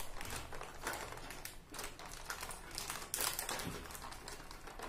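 Foil and plastic packaging film being peeled back by hand from a chocolate tray, crinkling and crackling in short irregular bursts.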